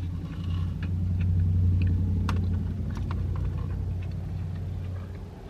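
Low engine rumble of a motor vehicle, heard from inside a car, swelling about a second in and fading away toward the end, with a few small clicks from eating and handling food.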